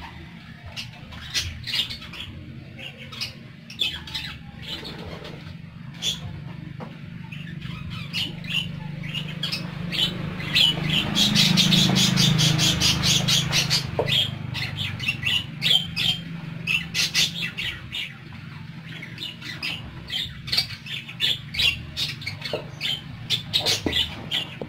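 A flock of caged budgerigars (parakeets) chattering in quick, short, high chirps and squawks, busiest about halfway through, over a low hum that swells and fades in the middle.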